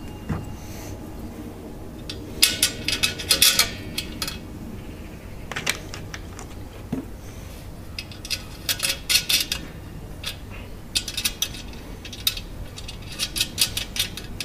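Metal bolts, nuts and a steel clip clinking and rattling against the tandoor's metal drum as they are fitted by hand, in several short bursts of clicks.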